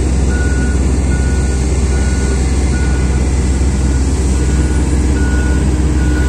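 Komatsu PC2000 mining excavator's diesel engine running with a steady low drone, while a single-pitch warning beeper sounds about once every 0.8 seconds: the alarm that goes with the powered access ladder being lowered.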